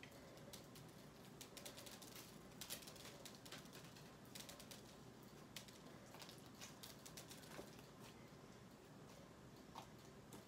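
Faint, irregular little clicks and crackles of slime with jelly cubes mixed in being squished and poked by hand.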